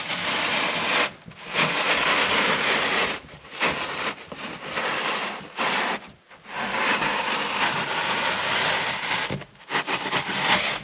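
Knife blade sawing through fibreglass ductboard along a pre-scored circular groove, in several long scraping strokes with brief pauses between them, cutting out a hole for a duct takeoff.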